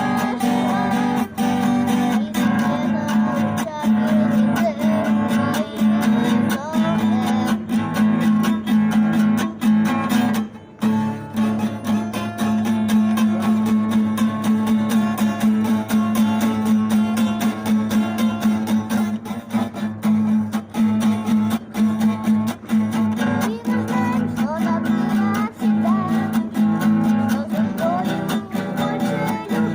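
Acoustic guitar playing a strummed instrumental tune, with a brief break about ten seconds in.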